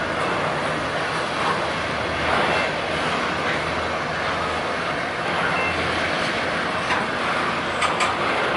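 Union Pacific diesel locomotives and a double-stack container train rolling past: a steady rumble of engines and steel wheels on the rails, with two sharp clicks near the end.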